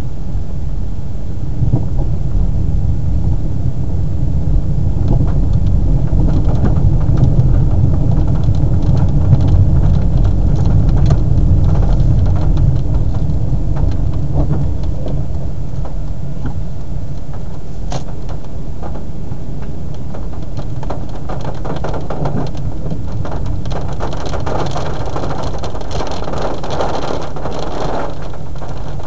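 Car interior while driving in the rain: a steady low engine and road rumble, louder through the first half. Rain hits the car, growing heavier in the last few seconds.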